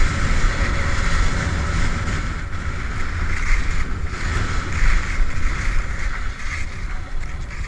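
Wind buffeting the microphone of a skier's camera during a fast descent, a steady low rumble, with the continuous hiss and scrape of skis running over snow.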